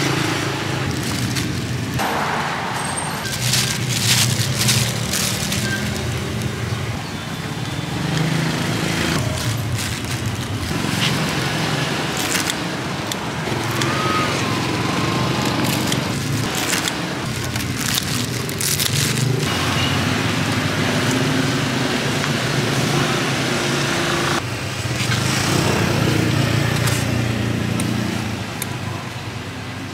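Street traffic with motorbike and car engines passing, with scattered clicks and rustles from metal tongs, scissors and plastic bags as food is served.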